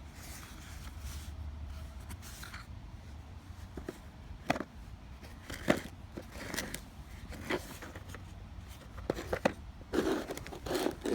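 A small contact lens mailer box being handled and opened by hand: scattered scrapes, taps and crinkles, coming more often and sharper in the second half.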